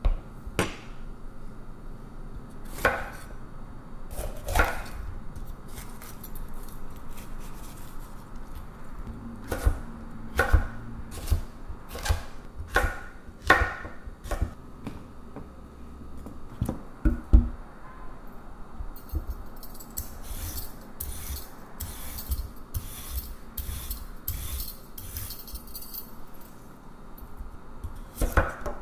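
Kitchen knife cutting a yellow bell pepper into strips on a wooden cutting board. Single knife strikes on the board come every second or so, then a quick run of slicing strokes in the second half.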